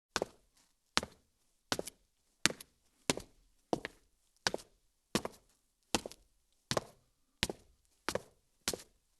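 High-heeled shoes walking on concrete, each step a sharp heel click with a short ringing tail, at an even pace of about three steps every two seconds. The steps start abruptly out of silence.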